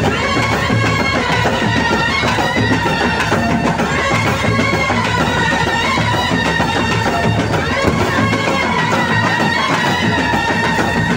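Loud music playing for the light and sound show: a sustained melody that slides between notes, over a steady drum beat.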